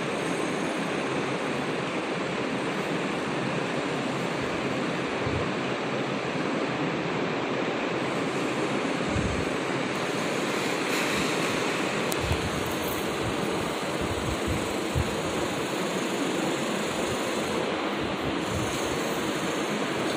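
A steady, even hiss of background noise with no speech, broken only by a few short, faint low knocks.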